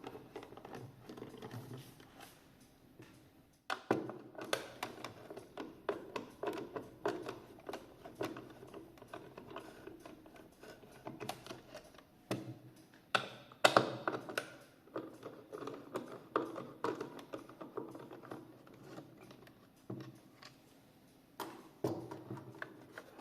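Irregular small clicks, taps and knocks of a cuckoo clock's case being handled and opened up with small hand tools, as its back is taken off to reach the screws inside. The sharpest knocks come about four seconds in and again about thirteen seconds in.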